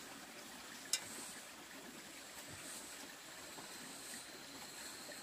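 Quiet outdoor ambience: a faint steady hiss with a thin high whine over it, and one sharp click about a second in.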